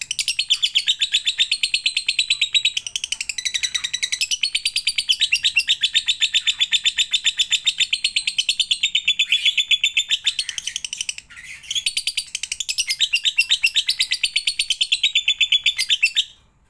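Lovebird ngekek: a long, fast, high-pitched chattering trill of rapidly repeated shrill notes. It breaks off briefly about eleven seconds in, then resumes and stops just before the end.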